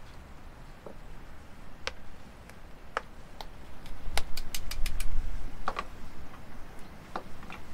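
Light clicks and taps of a utensil against clay bowls on a wooden table. They come singly at first, then as a quick run of about half a dozen sharp taps about four seconds in, then singly again.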